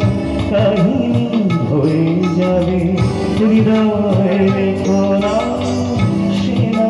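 Male vocalist singing live through a PA, backed by a band of keyboards, electric guitar and bass guitar over a steady percussion beat.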